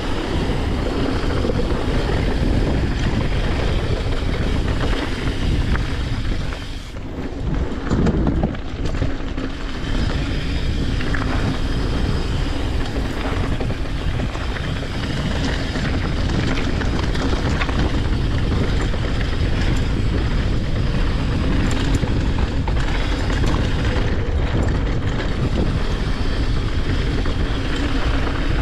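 Mountain bike ridden fast down a dirt and gravel trail: a steady rumble of tyres on rock and dirt, mixed with wind noise on the camera's microphone. A brief lull about seven seconds in ends in a thump about a second later.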